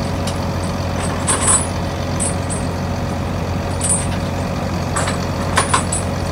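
Heavy steel flail-drum chains clinking briefly several times as they are handled, over the steady low drone of machinery running.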